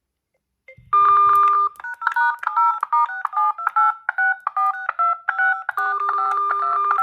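Smartphone ringtone for an incoming call: a fast electronic melody of bright chiming notes, starting about a second in.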